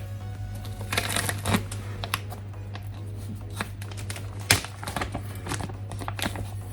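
Plastic laptop parts being handled and pressed into place: a run of small clicks and rattles, with the loudest snap about four and a half seconds in, over a steady low hum.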